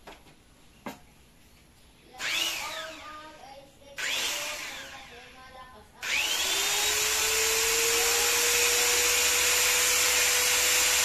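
Bosch angle grinder with no disc fitted, switched on briefly twice and coasting down each time, then run steadily at full speed with no load from about six seconds in, its pitch rising as it spins up and then holding, with a high whine over the motor.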